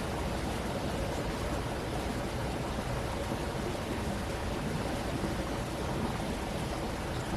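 Steady rush of a flowing stream, with a low rumble underneath that holds even throughout.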